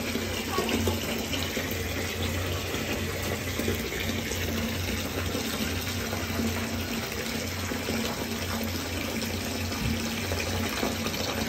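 Bath tap running steadily, water pouring into a filling bathtub of foamy water.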